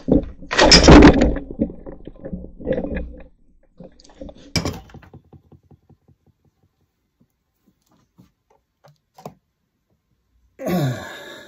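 A loud thump with clatter about a second in, then scattered knocks and clicks, one sharp click near the middle, and a quiet stretch before a brief pitched sound near the end.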